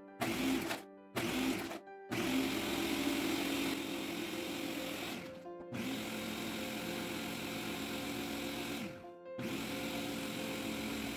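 Ninja Professional Plus (BN801) blender's 1400-watt motor running its Auto-IQ ice-crush program on a pitcher of ice cubes. It starts with two short pulses, then runs in three longer bursts split by two brief pauses, crushing the ice to powder.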